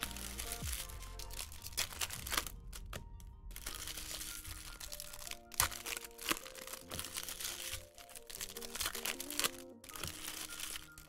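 Background music with a steady melody, over the repeated crinkling and tearing of trading-card pack wrappers being ripped open and handled.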